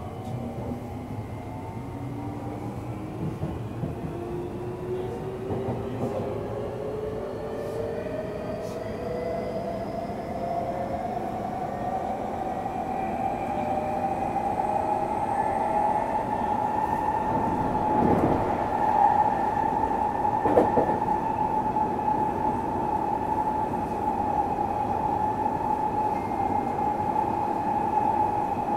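Tokyu 3000 series electric train running, heard from on board: its traction motor whine climbs in pitch as the train accelerates, then levels off into a steady tone about two-thirds of the way through. Wheel-on-rail rumble runs underneath, with two short knocks from the track near the end.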